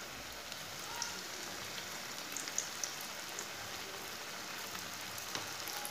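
Mint-and-gram-flour kababs deep-frying in hot oil in a kadai: a steady sizzle of bubbling oil, with a few light clicks.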